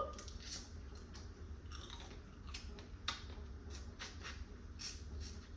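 A person chewing a mouthful of blue crab, with irregular wet clicks and smacks of the mouth.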